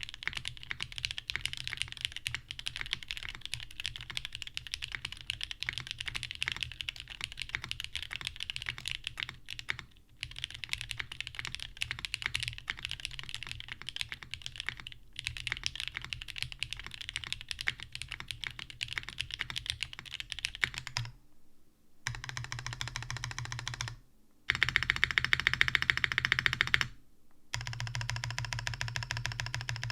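Typing on a plateless, PCB-mounted daji Seis Cero custom mechanical keyboard with lubed Cherry Top JWK Jwick linear switches and GMK keycaps: steady runs of keystrokes broken by brief pauses. In the last third the keystrokes come in faster, louder runs.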